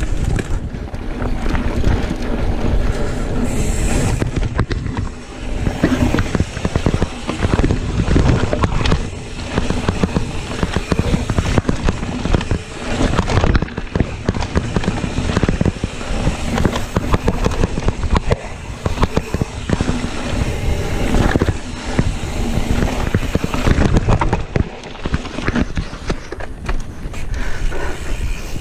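Mountain bike riding fast down a dirt singletrack: tyres rolling over rough ground, with constant clattering and rattling from the bike as it bounces over bumps.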